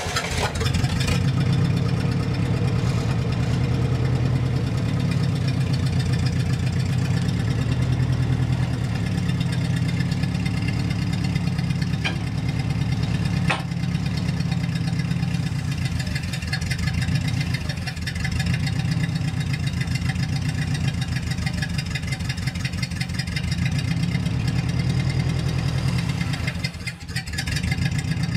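Hyster forklift's engine catching right at the start, then running steadily while the forklift works under a heavy load. There are two sharp clicks about halfway through and a short dip near the end.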